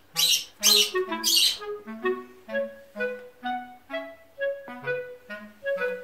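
Background music: a light melody of short woodwind-like notes over a bouncing bass line. A few harsh squawks cut across it in the first second and a half.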